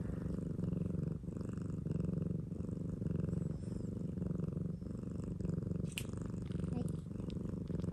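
Domestic cat purring steadily, the low rumble swelling and dipping with each breath about once a second. A single sharp click about six seconds in.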